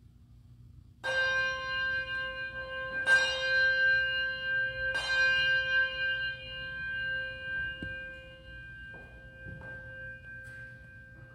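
A bell struck three times, about two seconds apart, each stroke ringing on and fading slowly, signalling the start of the worship service.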